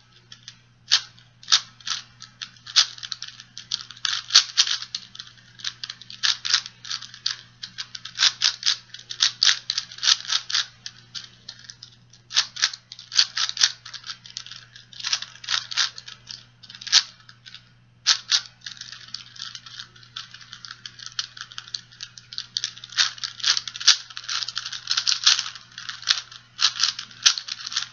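A plastic 4x4x4 speed cube being turned fast by hand: rapid, irregular clicking and clacking of its layers, with a couple of short pauses. A faint steady hum lies underneath.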